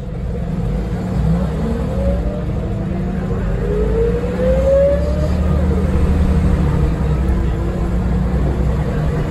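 Scania DC9 nine-litre five-cylinder diesel of a Scania L94UB bus, heard from inside the passenger cabin, pulling away and accelerating. A low engine rumble grows louder over the first few seconds, with a whine from the drivetrain rising in pitch, then the engine runs steadily at speed.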